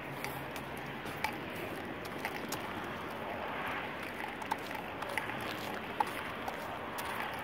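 Steady outdoor noise of wind and distant road traffic, with a few light clicks scattered through it.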